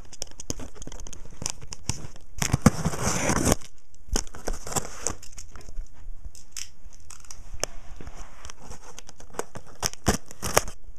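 Cardboard shipping box and its packaging being handled and opened: rustling and crinkling with scattered clicks, a louder rustling stretch about two and a half seconds in, and a few sharp knocks near the end.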